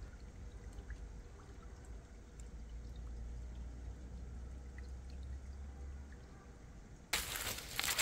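A small stream trickling over the rock bed of a gully, faint and steady. About seven seconds in, footsteps start crunching loudly through dry fallen leaves.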